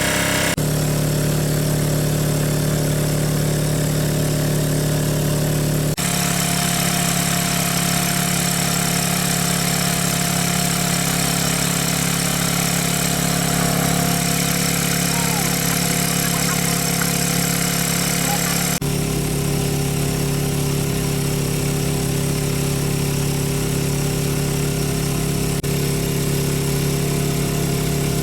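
Small engine-driven water pump running steadily at a constant speed. Its pitch and tone jump abruptly a few times.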